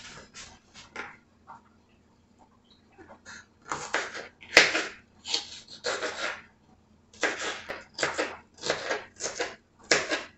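Knife slicing a jalapeño pepper on a plastic cutting board: a run of about a dozen short cutting strokes, starting about four seconds in and coming roughly every half second.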